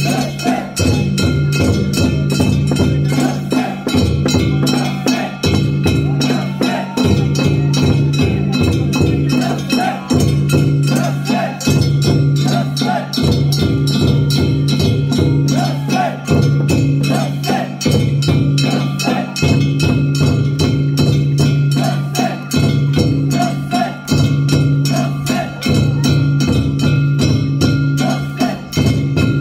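Japanese festival float music of drums and ringing metal gongs struck in a steady repeating rhythm, accompanying the kawafune boat float as it is hauled.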